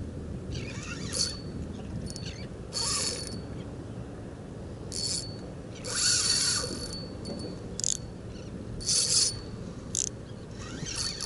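Fishing reel buzzing in about eight short bursts of uneven length, the longest about six seconds in. A steady low rumble runs beneath.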